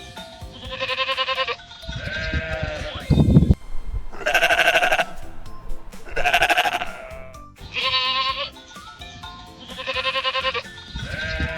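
Sheep bleating over background music: a series of about six wavering calls, each under a second long, coming every one and a half to two seconds.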